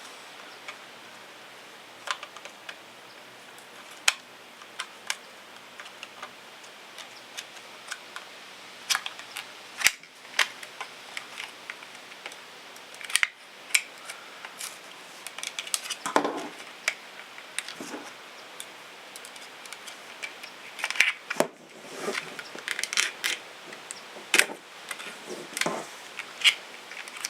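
Scattered light clicks and taps of a small metal folding knife being handled, with short stretches of plastic packaging crinkling and rustling.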